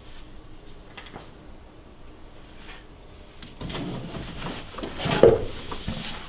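A book being slid off a shelf of a wooden bookcase, rubbing and scraping against the wood and the books beside it for about two seconds in the second half, with a sharp knock near the end.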